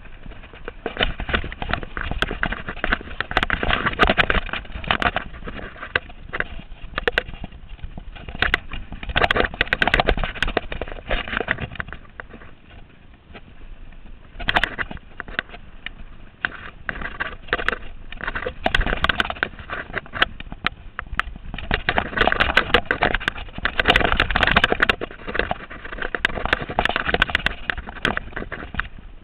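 Mountain bike rattling down a rough dirt singletrack at speed: a dense run of knocks and clicks from the bike bouncing over the trail. It eases off for a couple of seconds about halfway through.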